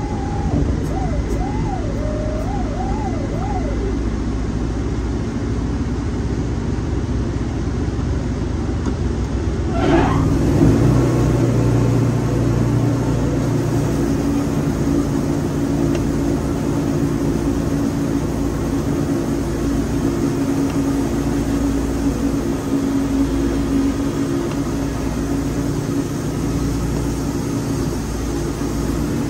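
Wood-Mizer LT40 portable band sawmill running steadily. About ten seconds in a brief rising whine sounds and the machine's running note grows louder and steadier. A faint wavering siren-like tone is heard in the first few seconds.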